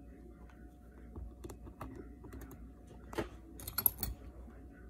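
Light clicks and taps of small repair tools and parts on an opened iPhone 6s being taken apart. The sharpest cluster of clicks comes near the end, over a faint steady hum.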